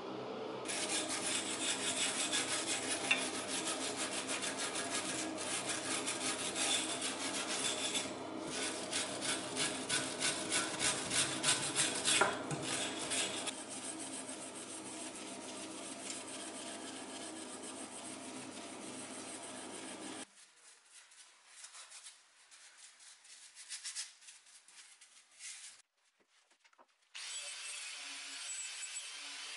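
Old paint being scraped by hand off a steel chair frame: a steady rasping of quick strokes. About two-thirds in it stops abruptly, leaving a few scattered scrapes, and a steady, quieter noise comes in near the end.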